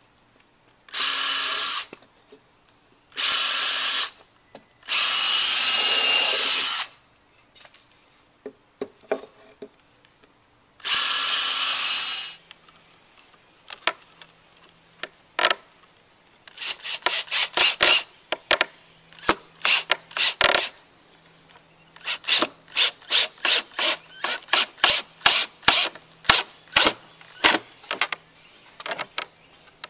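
Cordless drill driving wood screws into a wooden board. First come four steady runs of the motor, each a second or two long. Then, from about halfway, there is a long series of short trigger bursts, two or three a second, as a screw is started and driven home.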